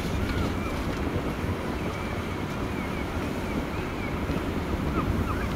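Wind buffeting the microphone over a steady low rumble of sea and ship, with faint short chirps now and then.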